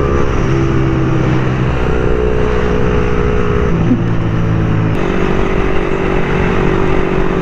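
Motorcycle engine running on the road, its note shifting in steps a few times, over a steady rush of wind and road noise.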